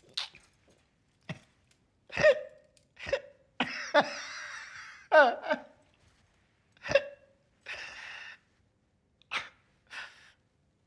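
A man's stifled laughter: short, separate bursts of laughing, with two longer drawn-out breaths between them.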